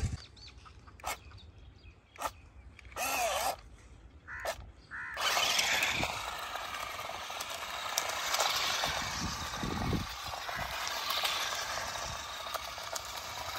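A few short bird calls, then from about five seconds in a battery-powered remote-control stunt car runs over loose dirt: a steady motor whir with a gliding whine and the hiss of its tyres throwing up dust.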